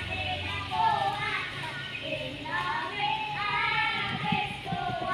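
Children singing and calling out in the street, heard from a passing car, with the car's low engine hum fading out under them about half a second in.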